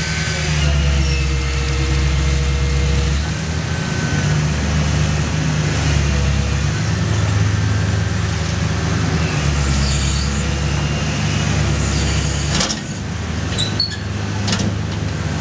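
Demolition excavator's diesel engine and hydraulics running under changing load, swelling and easing every few seconds, as its Indeco ISS 10/20 shear cuts into a steel silo's top. A drawn-out metal squeal comes in the first few seconds, and sharp clanks of tearing steel follow a little after halfway.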